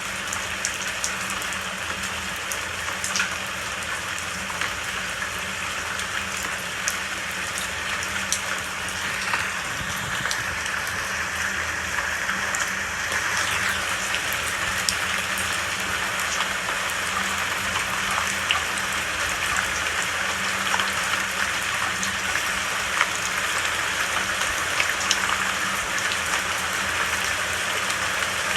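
Steady rain falling, with the sharp ticks of individual drops hitting a surface over the hiss of the downpour; it grows slightly heavier about halfway through.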